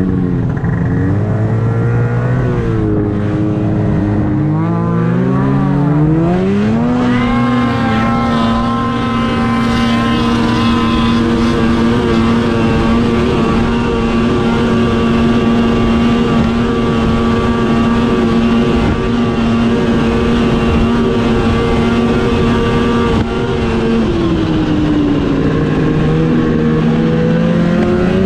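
Snowmobile engine heard close up from the rider's seat. It revs unevenly at low speed at first, climbs to a steady high pitch about seven seconds in and holds it while cruising, drops away a few seconds before the end, then picks up again.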